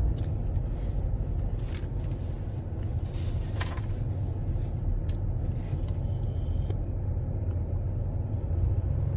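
Steady low rumble of a moving vehicle heard from inside the cabin, engine and road noise while driving, with a few faint clicks.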